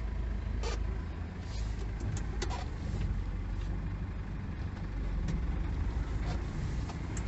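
Diesel van engine running steadily, heard from inside the cab as a low rumble, with a couple of faint clicks in the first few seconds.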